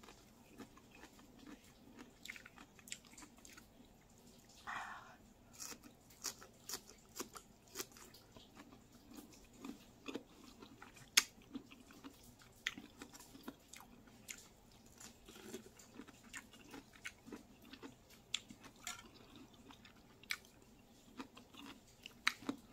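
Close-up mouth sounds of someone eating a slice of mango: soft, scattered wet chewing and lip-smacking clicks, with a short breathy sound about five seconds in.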